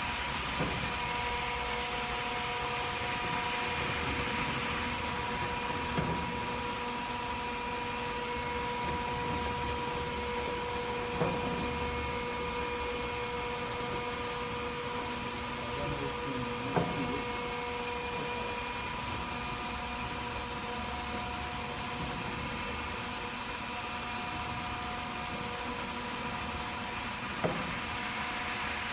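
Wheelbarrow tray edge-curling machine running: a steady mechanical hum carrying a few steady tones, broken five times by a short sharp knock.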